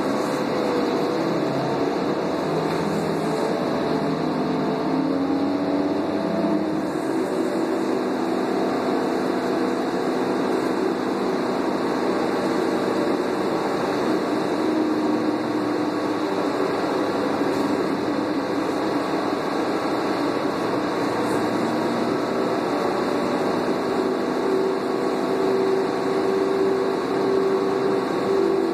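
Doosan CNG engine and B400R automatic transmission of a 2001 New Flyer C40LF transit bus driving, heard from inside the passenger cabin. A steady drone carries a whine that rises and falls in pitch as the bus changes speed.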